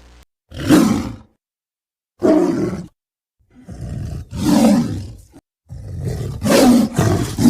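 Tiger roar sound effects: four separate loud roars, each cut off cleanly into silence before the next, the last still going at the end.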